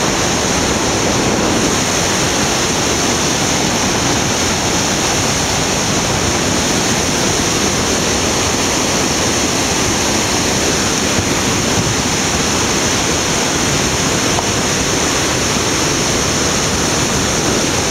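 Whitewater rapids of a fast mountain river rushing over boulders close to the microphone: a loud, steady, unbroken rushing noise.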